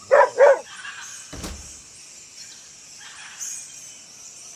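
Dog barking twice in quick succession, two short barks, followed about a second later by a single dull thump.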